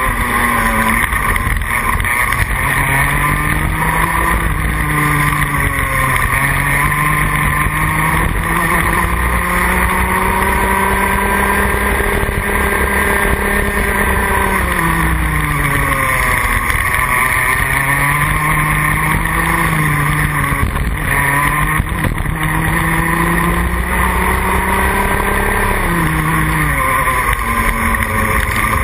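Rotax Junior Max 125cc two-stroke kart engine at racing speed, heard onboard. Its note climbs through the gears on the straights and drops sharply under braking into the corners about five times, with the longest climb in the middle.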